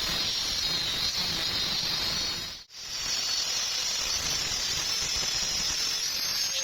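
Electric arc welding on steel reinforcing bar: a steady hiss from the arc that breaks off for an instant about two and a half seconds in, then runs on and stops at the end.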